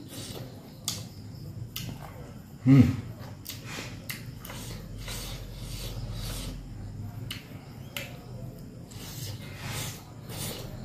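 Close-up eating sounds: a man chewing rice and dry beef with wet mouth clicks and smacks, and his fingers working the food on the plate. About three seconds in there is one brief, loud voiced sound from his throat.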